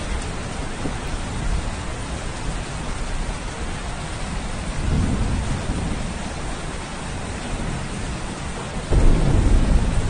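Rain falling steadily, with low rolls of thunder swelling about halfway through and a louder one setting in suddenly near the end.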